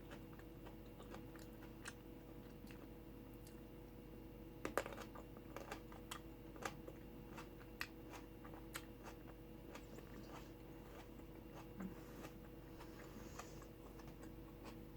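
Faint chewing: a person eating, with scattered small crunches and clicks between bites.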